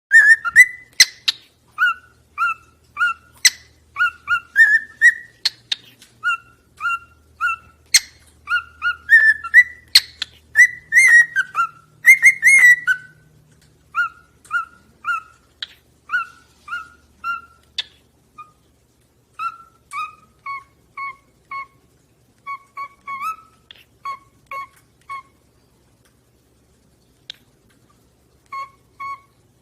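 Lovebirds chirping: short, shrill, repeated chirps, about two a second at first, with a few sharp clicks among them. The chirping thins out after about halfway and stops for a few seconds near the end before a couple more chirps.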